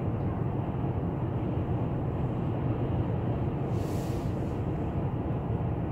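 Steady low rumble of road and engine noise inside a moving car's cabin, with a brief hiss about four seconds in.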